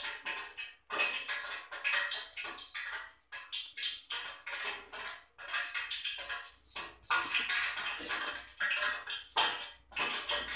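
Hands dredging chicken feet in dry frying flour in a ceramic bowl: irregular rustling and scraping of flour and fingers against the bowl, coming and going in short bursts.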